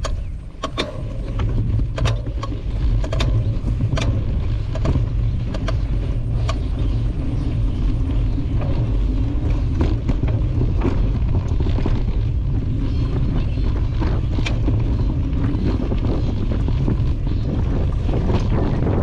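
Quad bike riding over a rough dirt track: a steady low drone of engine and wind buffeting the microphone, with frequent sharp knocks and rattles as the machine jolts over bumps.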